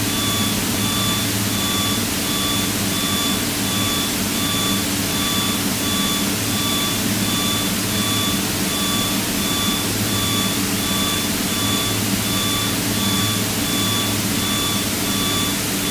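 Cabin noise of a Piper PA-32's six-cylinder piston engine and propeller running steadily in flight, heard through the headset intercom. A regular electronic beep repeats at even spacing throughout.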